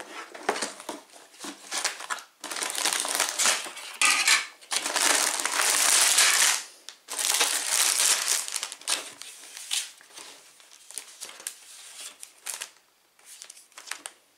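Cardboard Lego set box being opened by hand and its packed contents rustled: tearing, crushing and crinkling of cardboard and packaging, in long loud stretches through the middle, thinning to scattered short rustles near the end.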